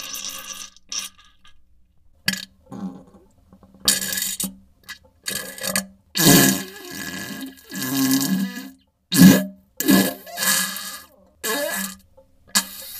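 Diarrhea sound effect: a string of about ten short, spluttering fart-like bursts at irregular intervals, most with a buzzing pitched tone under a noisy, wet hiss, with brief silences between them.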